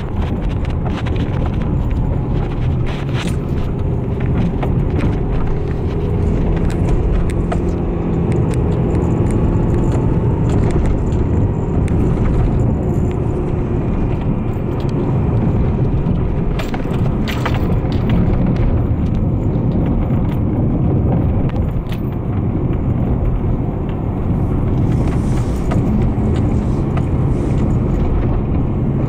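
Car engine and tyre rumble heard inside the cabin while driving over rough, cracked and patched pavement. Scattered clicks and rattles come through the steady noise.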